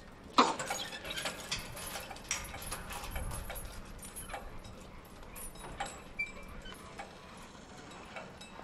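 Irregular clattering knocks and clicks, the loudest a sharp knock about half a second in, with a dull low thud around three seconds.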